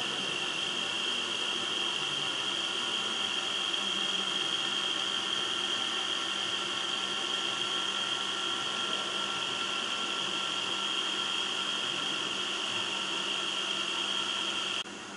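Pin-on-disc tribometer running a wear test, its disc spinning against the loaded pin: a steady whirring noise with a high whine held throughout. The sound drops abruptly near the end.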